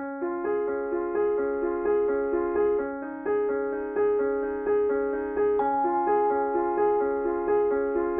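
Background music: a piano playing a steady repeating figure of notes, about two beats a second. It starts right after silence, and a higher held note joins a little past the middle.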